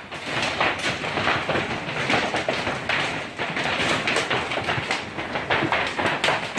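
Hailstones pelting hard surfaces in a massive hailstorm: a dense, continuous clatter of many rapid, irregular impacts.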